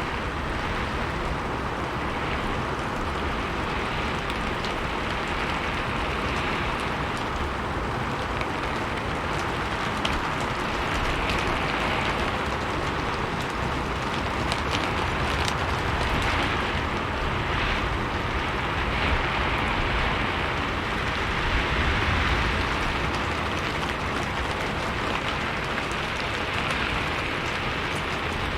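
Steady rain falling on a roof, a dense even patter with scattered sharper drop ticks and slight swells in strength.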